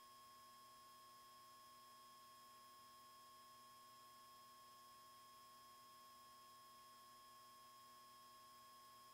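Near silence: only a faint steady electrical hum with a thin high tone.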